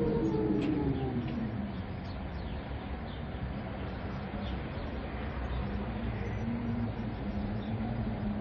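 Eerie howling wind with rain: a moaning wind tone that falls in pitch dies away within the first two seconds, leaving a steady hiss of wind and rain. A low moan rises again about six seconds in.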